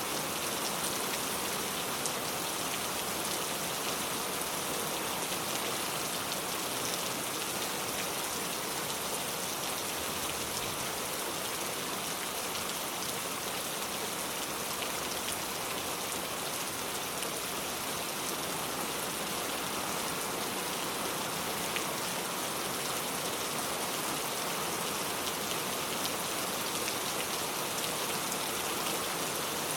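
Steady rain falling, an even hiss of drops with many fine ticks of individual drops landing on a surface.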